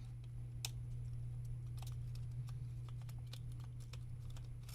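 A few faint, sparse clicks and taps of small tools and plastic parts as a PS5 controller is taken apart, over a steady low hum.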